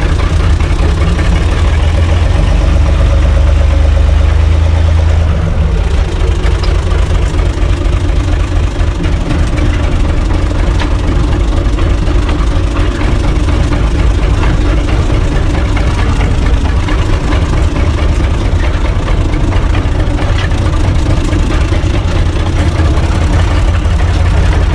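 UTB 445 4x4 tractor's diesel engine running while the tractor drives, heard loud from inside the cab. The engine note drops a little about five seconds in and then runs steadily.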